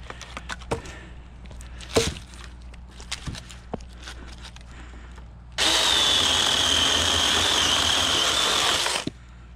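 Scattered knocks and clatter of branches being handled, then, about halfway through, a mini cordless electric chainsaw starts up and runs with a steady high whine as it cuts into a river birch branch, cutting off sharply near the end.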